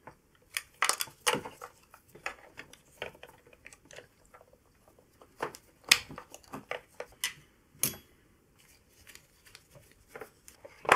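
Irregular clicks and knocks of parts being handled and fitted as a DeLonghi fully automatic coffee machine is reassembled, the sharpest clicks about six and eight seconds in.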